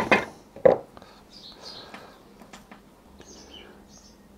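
Small birds chirping faintly in short high calls, with one sharp knock a little under a second in and a few faint clicks.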